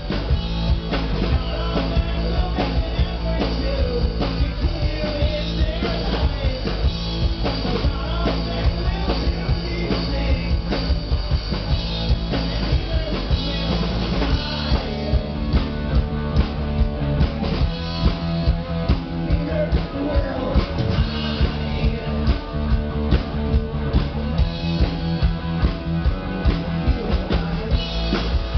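Rock band playing live: drum kit keeping a steady beat under electric guitars and bass.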